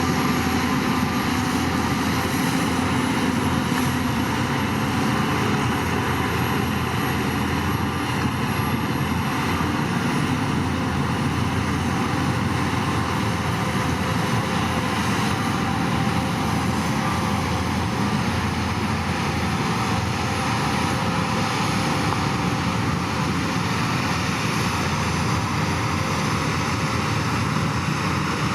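Heavy diesel construction machinery engine running steadily under load.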